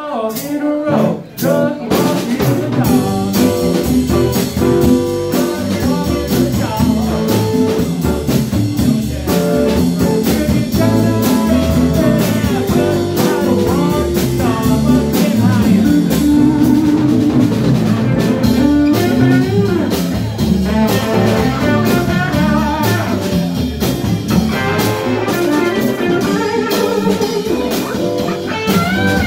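Live blues band playing: electric guitars over a drum kit, with a brief drop in loudness about a second in.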